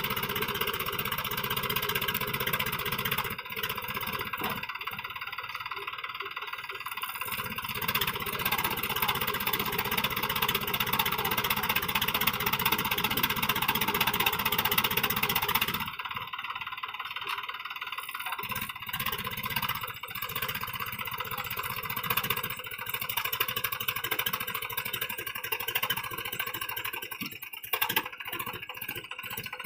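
Mahindra B275 DI tractor's three-cylinder diesel engine running hard under load, labouring to drag a sand-laden trolley out of soft sand where it is bogged down. The engine note swells and then drops back sharply about halfway through.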